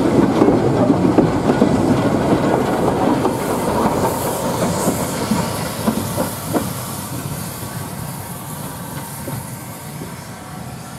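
Class 165 diesel multiple unit pulling away, its wheels clacking over rail joints with the diesel running, fading steadily as it draws off into the distance.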